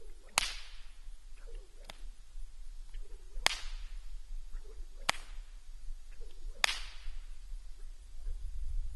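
A long riding whip swung through the air five times, about every second and a half. Each stroke is a short swish ending in a sharp crack.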